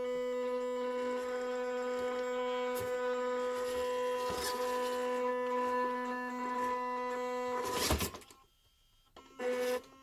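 WPL B-36 Ural RC truck's electric motor and gear drivetrain whining steadily under throttle as it crawls over a hammer, during a bench test of its repaired driveshafts. Scattered knocks come from the wheels and plastic body, with a louder knock about eight seconds in. The whine then stops for about a second and returns briefly near the end.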